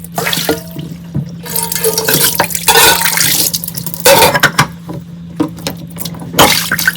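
Tap water running and splashing in surges over dishes in a kitchen sink, with occasional clinks of dishes.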